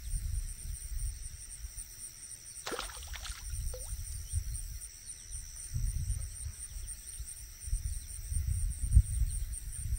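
A steady chorus of insects chirping, with a high pulsing trill held throughout, over irregular low rumbling on the microphone. A brief noisy burst about three seconds in.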